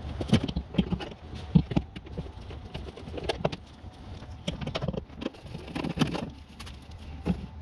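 Irregular metallic clicks and light knocks as screws and a Torx bit are handled and started by hand into the steel inner panel of a car door.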